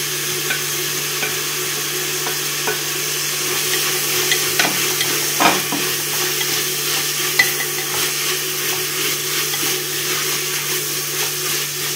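Onions sizzling in hot fat in a pressure cooker while being stirred, the spoon scraping and tapping against the pot every so often. They are at the wilting stage, meant to soften rather than brown. A low steady hum runs underneath.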